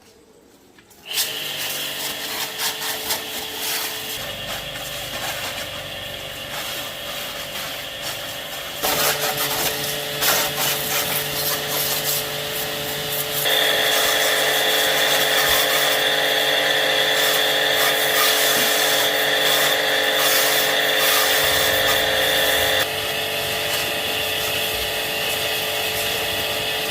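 A power tool running steadily, starting abruptly about a second in, with its pitch and loudness shifting suddenly a few times.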